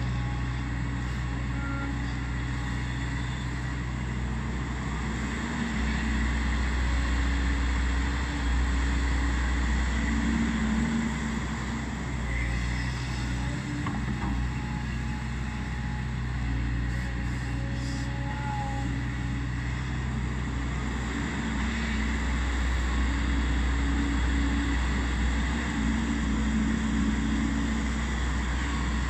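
Volvo EC210B crawler excavator's six-cylinder diesel engine running steadily, growing somewhat louder for several seconds at a time.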